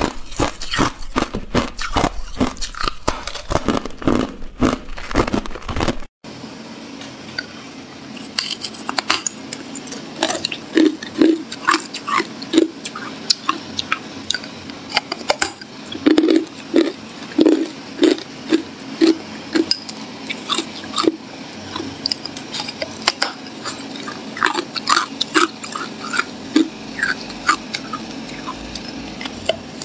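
Ice crunching close to the microphone: for about six seconds, rapid dense crunching of crushed ice. It cuts off suddenly, and then comes the biting and chewing of a large block of clear hard ice, heard as irregular loud crunches over a low hiss.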